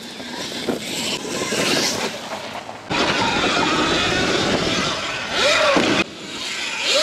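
Sur-Ron Light Bee X electric dirt bike ridden along a dirt track: a steady rush of tyre, chain and wind noise, with no engine note. The sound jumps abruptly in level about three and six seconds in, where riding clips are cut together, and a short whine rises and falls twice near the end.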